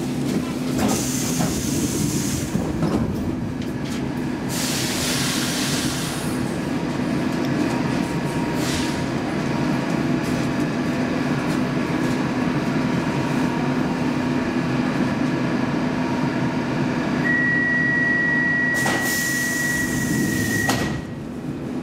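C15 metro train standing at a platform, its equipment giving a steady hum broken by a few bursts of hiss. Near the end a steady high tone sounds for about three and a half seconds together with a loud hiss, as the doors close before departure.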